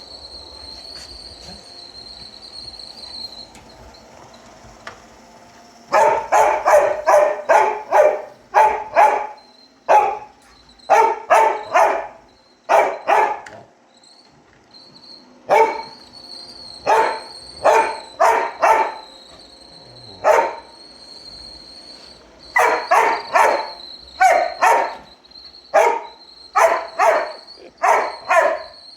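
A dog barking at a robot vacuum cleaner, starting about six seconds in, in quick runs of several barks each with short pauses between. A steady high-pitched whine from the running robot vacuum sits underneath.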